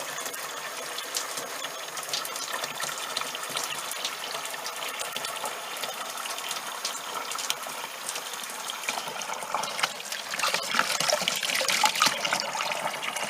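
Water pouring into the plastic wash tub of a twin-tub washing machine as it fills, a steady rushing splash that grows louder near the end.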